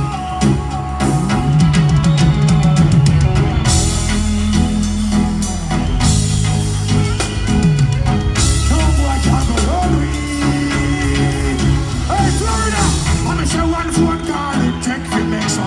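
Live band music playing loudly, with drums, heavy bass and guitar.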